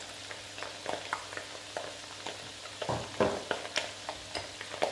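Spatula stirring and tapping food in a frying pan over a light sizzle of frying. The clicks and scrapes come irregularly, a few louder ones about three seconds in.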